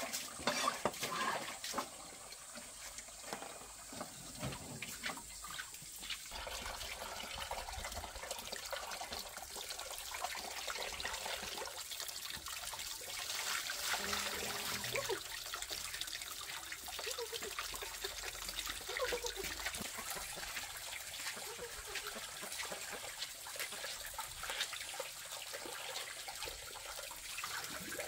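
Water running and splashing into plastic basins while fish are washed, with a few knocks of basins being handled in the first couple of seconds.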